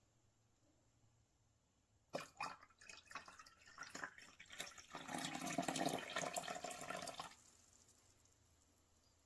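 Coffee splashing and trickling: a few sharp clicks and splashes about two seconds in, then a steady run of liquid for about two seconds that stops abruptly.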